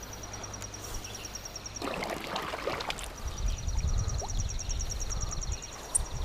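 Outdoor river ambience: a high, rapid trill of even ticks, about nine a second, from a calling animal. It breaks off for about a second and a half, then starts again. A brief rustle falls in the gap, and a low rumble follows.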